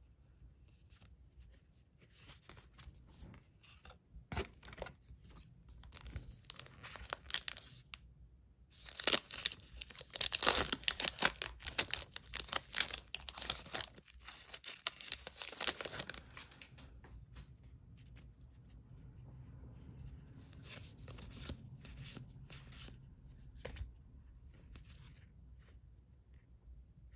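Yu-Gi-Oh Darkwing Blast booster pack's foil wrapper being torn open and crinkled, in a long loud run in the middle, with lighter scattered rustles and clicks of handling before and after.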